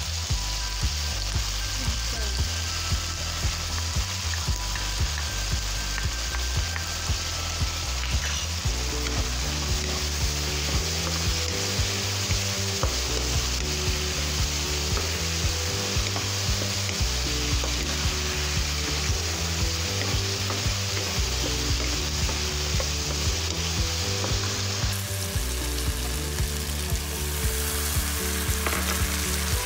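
Sliced pork ear, onion and chili sizzling in a hot nonstick wok, stirred and scraped round with a wooden spatula.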